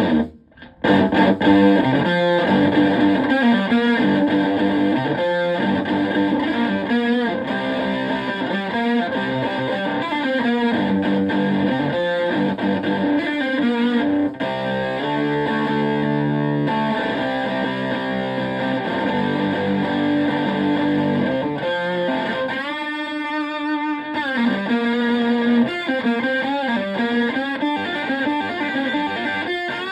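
Electric guitar (a Stratocaster) played through a Zonk Machine fuzz pedal replica into a Twin Reverb-style amp, sounding fuzzy and distorted as it plays a run of riffs and single notes. The guitar breaks off briefly just after the start, and there are held, wavering notes later on.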